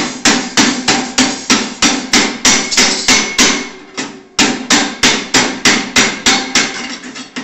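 Chipping hammer striking a freshly stick-welded steel plate about three times a second, knocking the slag off the weld bead. There is a short pause a little past halfway, then another run of strikes that grows weaker near the end.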